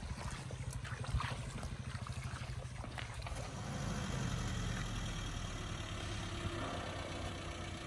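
Maruti Suzuki Gypsy's engine running steadily at low revs as the 4x4 creeps through a shallow stream, a little louder from about four seconds in.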